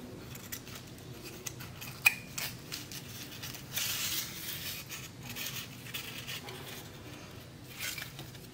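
Quiet crafting handling sounds: soft clicks and rustles as thin twine is threaded through egg-carton butterflies, with a sharper click about two seconds in and a brief rustle around four seconds in.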